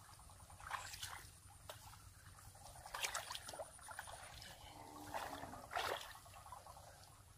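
Hands sloshing and squelching through shallow muddy water, in a few short splashes. The loudest come about three seconds in and just before six seconds.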